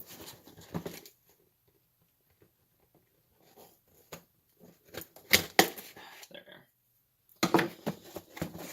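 Scissors snipping open a product box's packaging: scattered handling clicks, two sharp snips a little past halfway, then the packaging rustling loudly as it comes open near the end.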